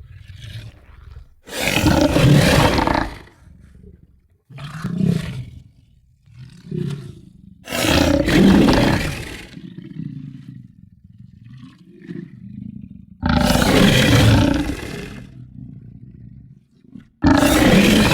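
Creature sound effect of an aggressive entelodont: about six loud, rough roars of one to two seconds each, with lower growling and grunting between them.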